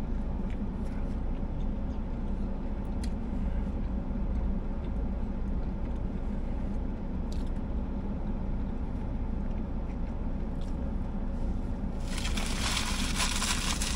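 Steady low hum of an idling car, heard from inside the cabin. About twelve seconds in, a paper sandwich wrapper crinkles and rustles.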